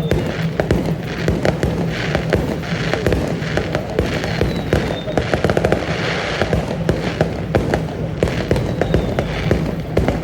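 Fireworks going off in dense, rapid crackling, with a steady low hum underneath.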